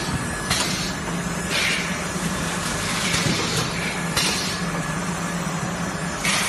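Shrink-wrap packaging line (L-bar film cutter-sealer with heat shrink tunnel) running: a steady low machine hum with short hissing bursts about once a second.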